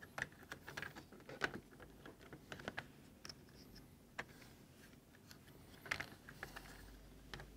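Faint, irregular clicks and taps of hard plastic parts being handled and fitted back into an opened Nerf Hyperfire blaster shell.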